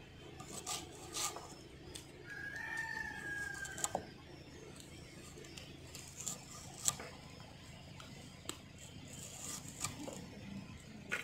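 A rooster crowing once, a single drawn-out call about two seconds in, over sharp clicks of a small knife cutting a red onion over an aluminium plate.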